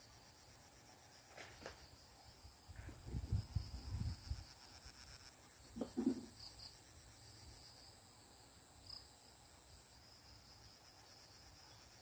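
Insects chirring steadily at a high pitch, with a faint even pulse. About three to four seconds in come a few low rumbles, and a short low sound near six seconds.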